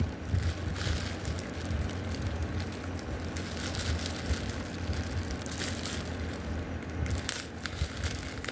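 Clear plastic wrapping crinkling and crackling irregularly as it is handled and pulled open, over a steady low hum.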